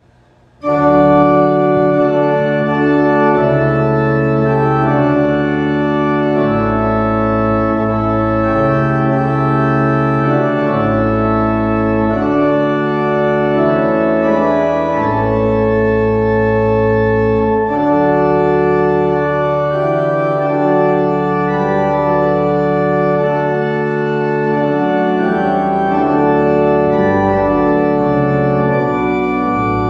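Church organ playing sustained chords over a pedal bass line, coming in suddenly about a second in after a quiet moment.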